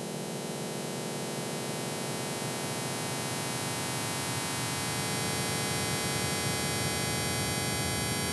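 Industrial noise music: a dense, steady electronic drone of many held tones over hiss and static, heaviest in the low end, slowly growing louder.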